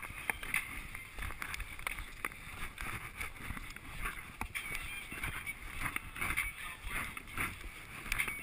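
Skis shuffling and scraping over snow, with pole tips crunching into the snow in irregular strokes.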